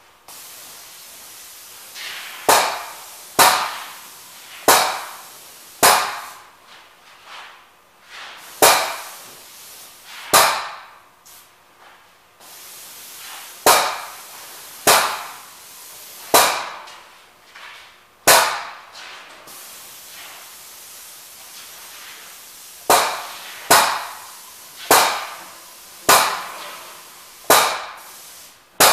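Paint sprayer pump stroking with sharp pops, about one a second in runs with a pause near the middle, over a steady hiss of spraying.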